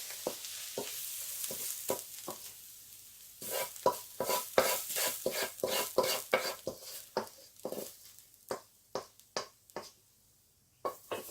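Spatula scraping and scooping stir-fried vegetables out of a hot pan into a dish: a faint sizzle at first, then a run of quick scrapes and knocks, about two a second, from about three seconds in.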